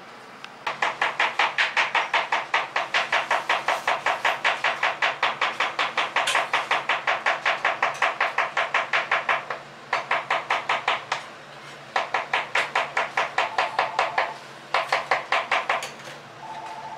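Rapid, even knocking, about five knocks a second, in one long run and then three shorter runs that stop and start: a kitchen knife chopping on a wooden cutting board.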